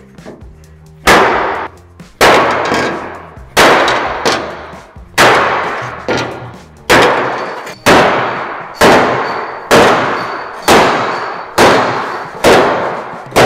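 Body hammer striking the dented sheet-steel hood panel of a 1940 Willys, straightening it: about a dozen heavy blows, roughly one a second, starting about a second in, each a loud clang that rings on and fades before the next.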